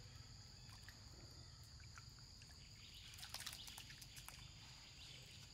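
Near silence: faint outdoor ambience with a steady high insect drone. About three seconds in comes a short patch of faint splashing as a monkey swims through the pool water.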